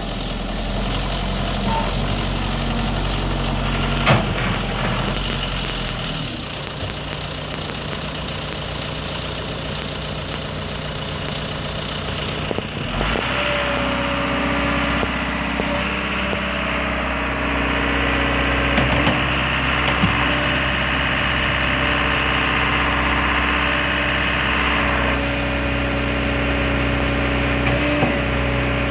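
Diesel engine of a 2019 John Deere 310L backhoe loader running steadily. Its note shifts about six seconds in and again about thirteen seconds in, where it grows louder and brighter. There is a sharp click about four seconds in.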